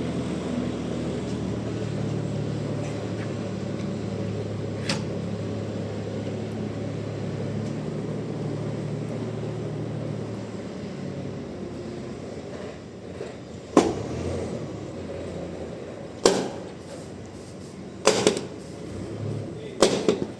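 Bandsaw sawmill running steadily through a trembesi log for about ten seconds, then dropping to a lower, quieter run. In the second half come four sharp, loud knocks a couple of seconds apart, wood or metal being struck.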